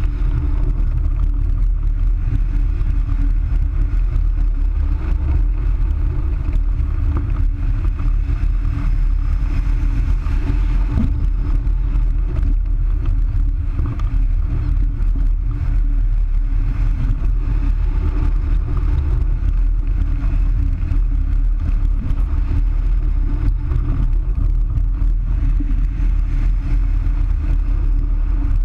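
Airflow over a wing-mounted camera on a Wills Wing Falcon 3 hang glider in flight: steady, loud, low-pitched wind noise with no breaks.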